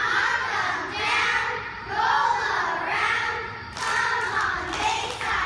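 A group of young girls chanting a cheer in unison, in short shouted phrases about a second apart, with a few sharp hits about four seconds in.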